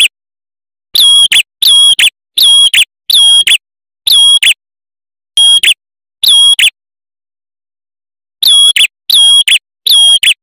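Male red-headed tailorbird singing: a loud series of high, clear whistled notes, each about half a second long with a quick upturn at the end. The notes come in runs of two to five, separated by pauses of one to two seconds.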